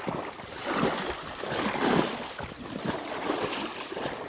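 Shallow stream water sloshing and splashing in a few surges as someone stamps and wades through the grassy bank to drive fish into a scoop net (kick-netting). The loudest surge comes about two seconds in.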